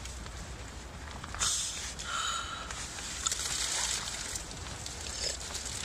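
A person sipping and slurping a hot drink from a steaming metal mug, in several short noisy sips.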